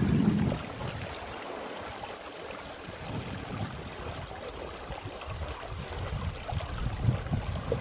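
Water rushing and splashing along the hulls of small sailboats under way, with irregular low rumbles that are loudest just at the start.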